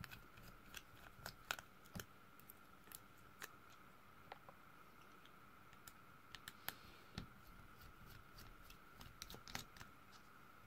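Faint, irregular clicks and ticks of a small Phillips precision screwdriver working the tiny screws of a smartphone's inner frame, the metal tip catching and slipping in the screw heads. A faint steady high tone sits underneath.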